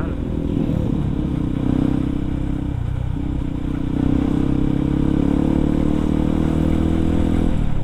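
Yamaha WR155R's single-cylinder four-stroke engine running under way at steady throttle. It dips briefly about three seconds in and again near the end, and runs a little louder from about four seconds in.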